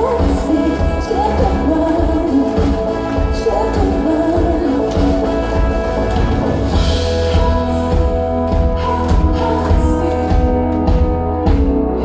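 Live pop music played loud through a concert sound system: a singing voice over sustained chords and heavy bass. The voice drops out about halfway through, leaving the instrumental.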